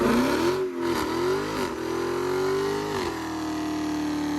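Dodge Hellcat Redeye's supercharged V8 revving: the engine note rises and falls in a few quick revs, holds steady at high revs for a couple of seconds, then climbs again near the end.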